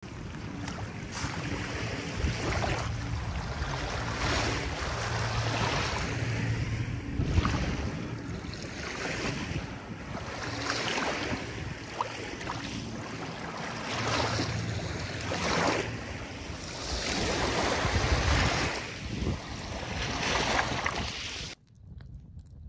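Small lake waves lapping and washing up onto a gravel shore, the wash swelling every one and a half to two seconds, with wind buffeting the microphone. It cuts off suddenly about a second before the end.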